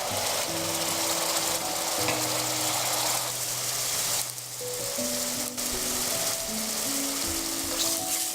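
Food sizzling as it fries in a pan, with stirring, under background music with long held notes. The sizzle thins briefly about four seconds in.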